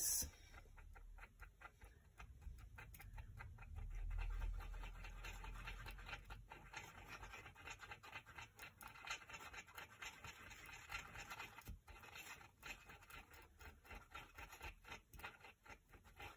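Two-part epoxy being stirred on a piece of cardboard with a small pointed tool: faint, irregular scraping and scratching strokes. There is a dull low rumble about four seconds in.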